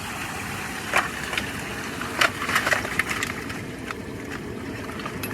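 Yabby (freshwater crayfish) shells cracking and snapping as they are peeled by hand: a few sharp cracks, bunched together near the middle. Under them runs a steady background rumble.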